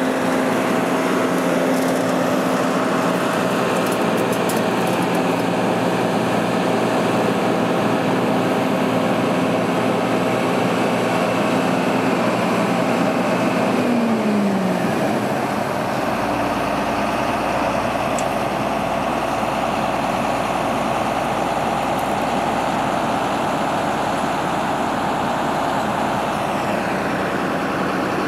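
Heavy harvest machinery running with a steady whine over engine noise. About halfway through, the whine drops in pitch and settles lower, and a deep rumble comes in.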